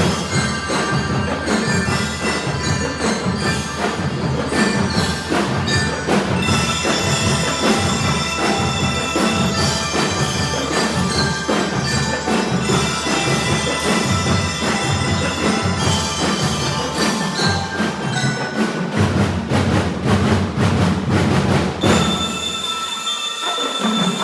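Drum and lyre corps playing: marching drums beat a steady rhythm under bell lyres ringing out a melody. Near the end the drums drop out and the bell lyres ring on alone.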